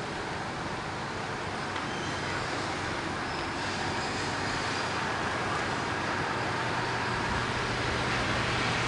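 Car driving slowly along a dirt road: steady engine and tyre noise that grows slowly louder, with a low hum coming in about six seconds in.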